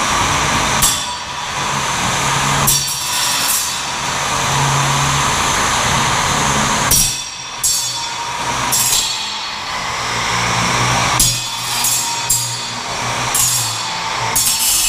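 Small combat robots grinding against each other: a spinning sawblade weapon running and scraping on the opposing robot, with several sharp metal impacts.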